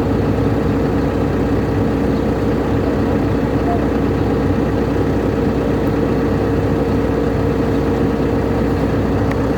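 Excavator's diesel engine idling steadily with a constant hum, the hydraulic breaker not hammering.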